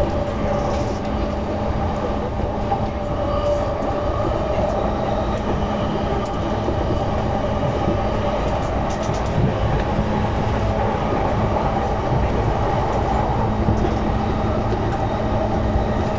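Running noise of a JR East E233-0 series electric train, heard inside the passenger car: a steady rumble of wheels on rail with a constant low hum.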